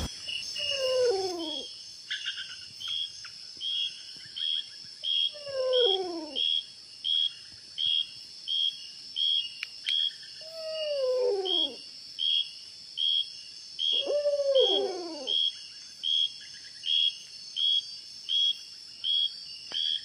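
Night chorus of insects: a steady high buzz with a regular chirp repeating about every half second. Over it, an unseen animal gives four drawn-out falling calls, one every four to five seconds. This is the strange nightly sound heard beside the camp.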